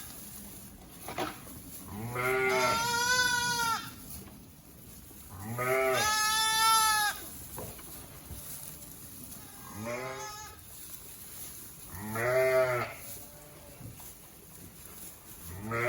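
Young bottle-fed lambs bleating, hungry for milk: four or five calls a few seconds apart, two of them long.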